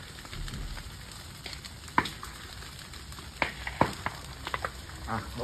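Reed and grass fire burning: a steady crackling hiss with scattered sharp pops.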